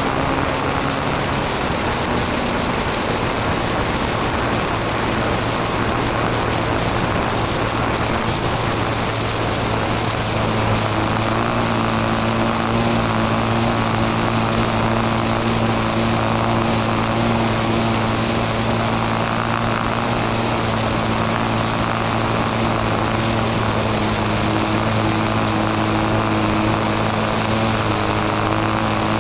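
Small piston engine of an RC model airplane running steadily in flight, heard close up from a camera mounted beside it, with air rushing past. Its note changes slightly about ten seconds in.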